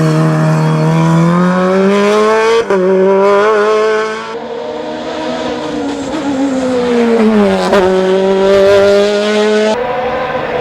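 Osella PA 21 S Evo sports-prototype's Honda engine running at high revs under full throttle, its pitch climbing and dropping sharply at quick gear changes, then falling as it slows and climbing again.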